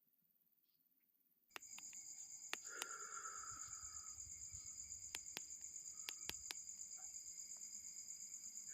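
Night insects, crickets, trilling in a steady high-pitched chorus that starts about a second and a half in after near silence. Scattered sharp clicks and taps are heard over it.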